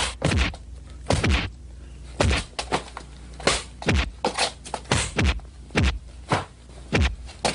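Fight sound effects of punches and kicks landing: a quick, irregular series of a dozen or so sharp whacks, each sweeping down in pitch.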